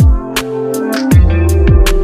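Electronic background music, with deep bass-drum hits that drop in pitch, regular sharp percussion, and held synth notes.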